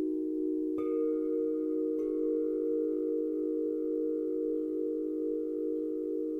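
Singing bowls ringing in a steady, slowly wavering drone, with a strike about a second in and another about a second later whose higher tones keep ringing over it.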